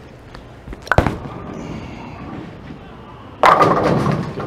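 Storm Code Red bowling ball landing on the wooden lane with a sharp thud about a second in, rolling with a low rumble, then crashing loudly into the pins near the end, a strike.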